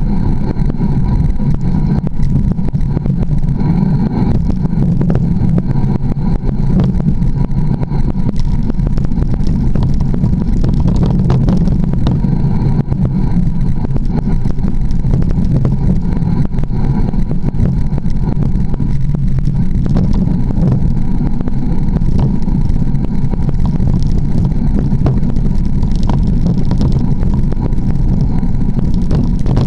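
Steady low rumble of wind buffeting an action camera's microphone on a mountain bike's front fork, mixed with tyre and trail noise as the bike rolls downhill over dirt at speed.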